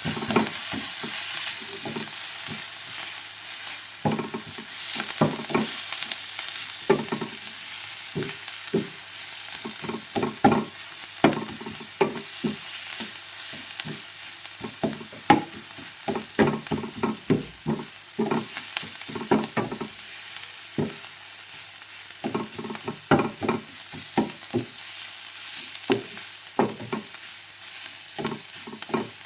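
Food frying in a pan with a steady sizzle, while a cooking utensil stirs it and knocks against the pan many times at an irregular pace.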